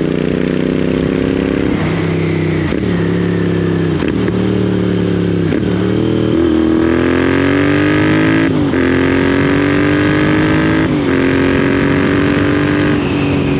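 Royal Enfield Interceptor 650's parallel-twin engine through Lextek slip-on exhausts, heard from the saddle while riding. The note dips and shifts several times in the first half. From about six seconds in it rises steadily under acceleration, broken by two upshifts a couple of seconds apart, each followed by a fresh climb.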